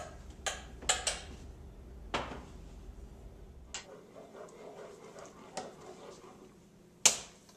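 A metal saucepan and kitchen utensils clanking and clinking as the pot is handled on the stove and stirred with a spoon: a string of separate sharp knocks, the loudest one near the end.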